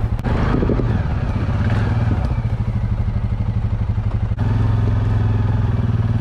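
Arctic Cat TBX 700 utility vehicle's engine running while driving, a steady low pulsing hum with a little rattle near the start. About four seconds in it shifts suddenly to a louder, steadier drone.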